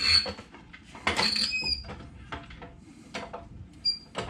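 Metal clicks and three short, high squeaks from a wrench and ratchet working on a shock absorber's lower mounting bolt.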